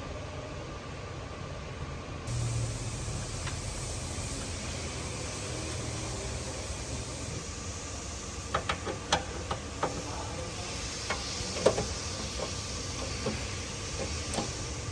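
A steady hiss that gets brighter about two seconds in, with a scatter of light clicks and taps in the second half, like parts being handled during an engine-bay installation.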